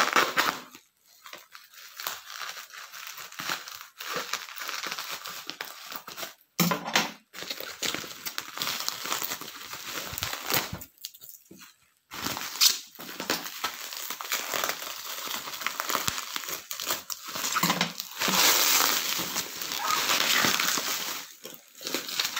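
Plastic parcel wrapping and bubble wrap crinkling irregularly as hands unwrap a parcel, with a few short pauses.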